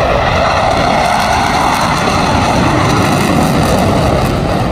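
Jet engine roar from a four-ship formation of fighter jets passing overhead, a loud rushing roar that swells in and holds steady.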